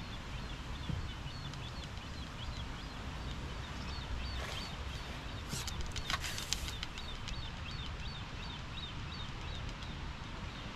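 Small birds chirping, short high notes repeated throughout, over a steady low rumble. A brief cluster of sharp clicks and rustles comes about halfway through.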